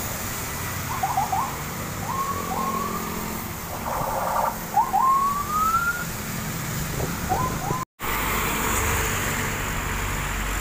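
Motorcycles and cars passing on a wet road, their engines and tyre hiss making a steady low noise, with short rising whistles in quick groups over it and one longer rising whistle about halfway through. After a brief cut near the end, a heavy truck rolls by with a deeper rumble.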